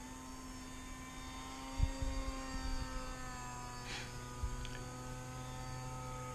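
Electric brushless motor and propeller of an RC plane humming steadily with a few tones that drift slightly in pitch, plus a couple of short low thumps.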